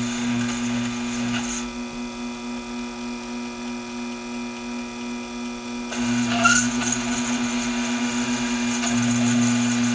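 Taig micro lathe running with a steady motor hum while the tool turns 304 stainless steel, throwing stringy chips. The cutting hiss drops out about a second and a half in and comes back about six seconds in, briefly louder as the tool bites again.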